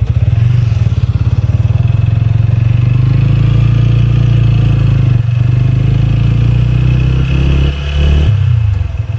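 TVS Apache RTR 160 4V's single-cylinder engine running as the motorcycle is ridden along, a loud, steady engine note. It drops away just before the end as the throttle eases.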